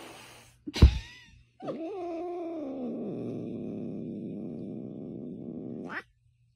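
A tabby cat gives a short sharp cry about a second in, then a long, drawn-out grumbling yowl of about four seconds that cuts off abruptly: the sound of an irritated, grumpy cat.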